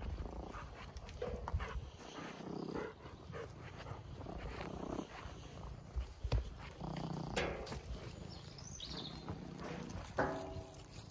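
Domestic tabby cat purring close by on a person's shoulder, with scattered small knocks and rustles. About ten seconds in there is a short pitched animal call.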